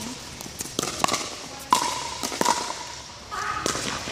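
Pickleball rally: paddles striking the hollow plastic ball with sharp pops, several hits about half a second to a second apart, each ringing briefly in the large hall.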